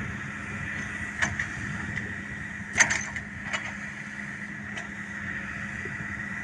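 Excavator diesel engine running steadily at a constant pitch, with a few short knocks, the loudest about three seconds in.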